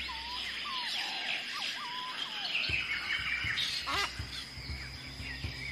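Rainforest ambience of many birds calling: whistled notes that slide in pitch, thick chirping higher up, and a quick run of rising chirps about four seconds in, over a constant high whine.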